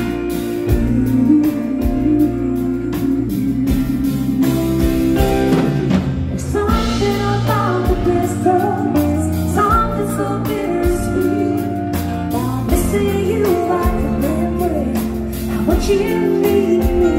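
A live band plays a slow ballad on acoustic guitar, electric guitar, electric bass and drums. A woman's singing comes in about six seconds in.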